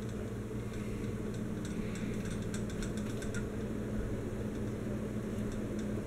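Encon Casanova ceiling fan running at speed: a steady motor hum with the rush of air from the turning blades. A run of faint ticks sounds between about one and a half and three and a half seconds in.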